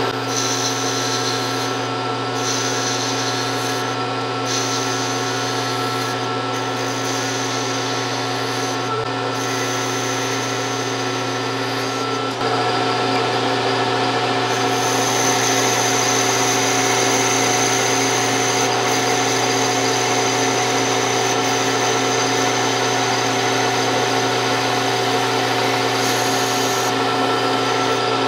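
Metal lathe running steadily, its gear drive whining in several steady tones, while a turning tool cuts a Delrin bushing blank down to size, peeling off stringy plastic chips. The sound steps up a little louder about twelve seconds in.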